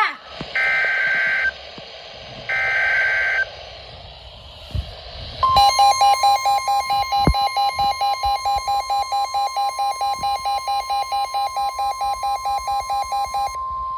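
NOAA Weather Radio Emergency Alert System signal: two short screeching data bursts of the SAME header, then, about five seconds in, the long steady warning alarm tone, with the weather radio receiver's own alarm beeping rapidly over it, about five beeps a second, until near the end. It signals a new warning being broadcast, here a tornado warning.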